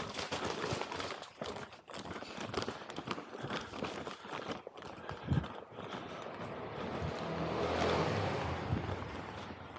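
Footsteps on a hard floor with plastic rustling and crinkling, as sacks of material are carried by hand. Near the end a low vehicle rumble from the street swells and fades.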